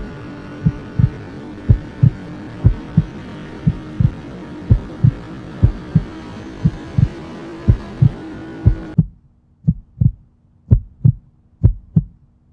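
Heartbeat sound effect: paired low thumps about once a second over a steady hum. The hum drops out about nine seconds in, leaving the beats on their own.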